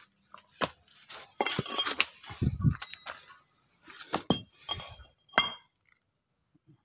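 Metal clutch parts being handled and knocked together: a run of sharp clinks and knocks, several with a short metallic ring.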